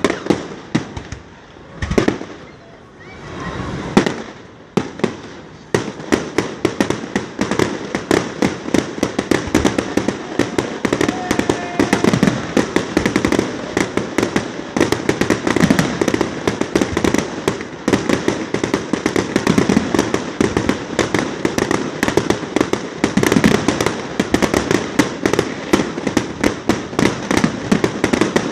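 Fireworks display: a few separate loud bangs about two seconds apart, then from about six seconds in a dense, continuous barrage of rapid bangs and crackles.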